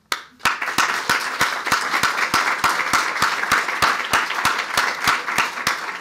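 Audience applauding, starting suddenly right after a closing line, with evenly spaced claps standing out about three times a second.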